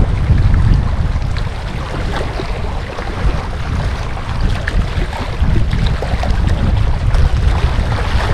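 Wind buffeting the microphone in a steady low rumble, with small waves lapping and splashing against rocks in the shallows.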